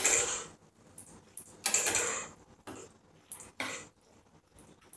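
Steel spatula scraping and stirring through a thick mix of boiled green peas, potato and ground spices in a coated frying pan, in a run of short, uneven strokes.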